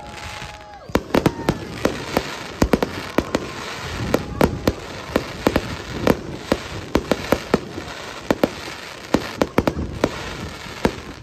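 Fireworks display: aerial shells bursting overhead in quick, irregular succession, with sharp bangs two or three times a second over a continuous crackle from the glittering stars.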